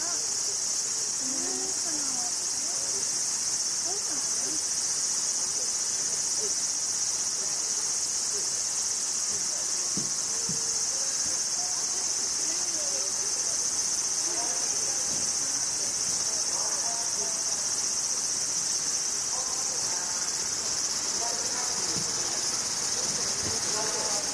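Steady, unbroken, high-pitched chorus of summer cicadas, with faint distant human voices underneath.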